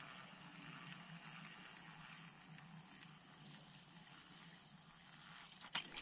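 Quiet creekside ambience: a faint even hiss with a steady high-pitched drone, and a few light clicks near the end.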